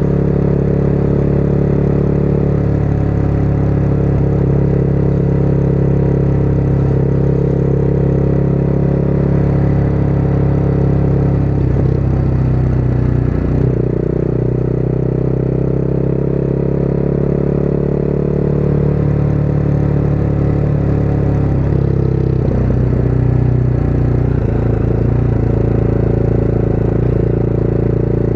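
Motorcycle engine running at road speed, heard from the rider's seat with wind noise. The engine note shifts about halfway through and again about three quarters of the way in, as the rider changes throttle or gear.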